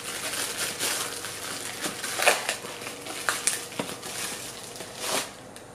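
Plastic mailing envelope and a thin clear plastic bag being torn open and handled: steady crinkling and rustling, with several louder crackles.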